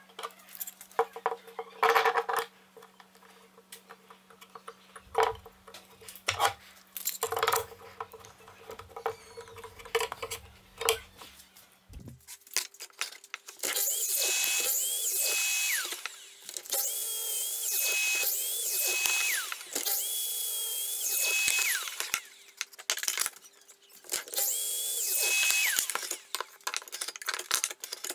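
Small wooden pieces handled on a workbench, with scattered clicks and knocks; then, about halfway through, a Festool sliding miter saw making a series of short cuts into a thin board, each a couple of seconds long, with a steady whine over the blade noise.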